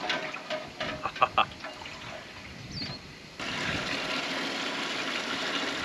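A few metal knocks as a perforated strainer basket settles into a large metal stockpot. Then, about three and a half seconds in, water from a garden hose starts pouring steadily into the pot.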